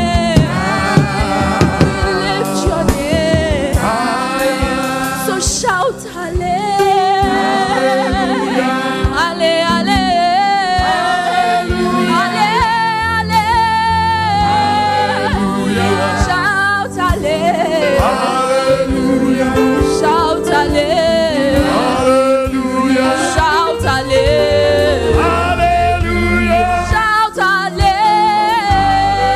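Gospel worship music: a choir singing with instrumental backing, voices sustaining wavering notes over steady low bass notes.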